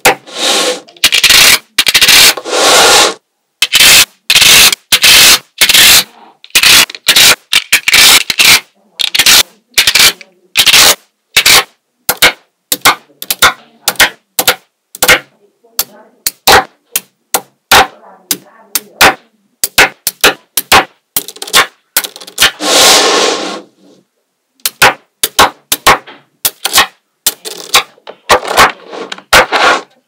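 Small neodymium magnetic balls clicking and snapping together as strips of balls are pressed onto a magnetic-ball structure, a rapid, irregular run of sharp clicks. A few longer rattling scrapes come as whole strips of balls are slid and settled into place, one about two seconds in and another around twenty-two seconds in.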